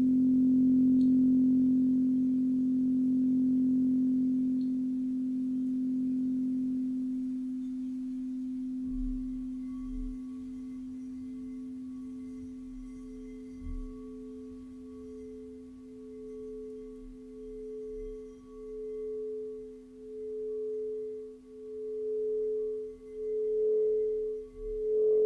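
Frosted quartz crystal singing bowls: a low bowl's tone rings on and fades away over the first several seconds. About nine seconds in, after a few soft knocks of the wand, a higher bowl is rubbed around its rim, its tone swelling and pulsing about once a second and growing louder toward the end.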